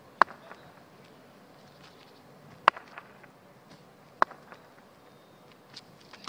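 Three sharp, hard knocks, well apart, of a cricket bat being tapped on the asphalt at the crease while the batsman waits for the ball, over a faint outdoor hiss.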